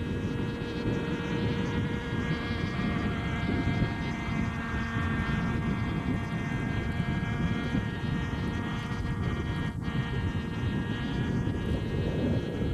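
Engine and rotor of a 550-size NOTAR radio-controlled model helicopter running steadily in flight: a constant high buzzing whine over a low rumble.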